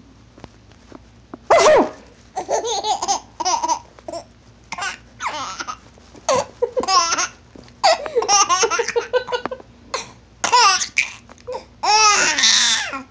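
Baby boy laughing in repeated short fits of giggles. There is a sharp, loud burst about a second and a half in, and a long, loud laugh near the end.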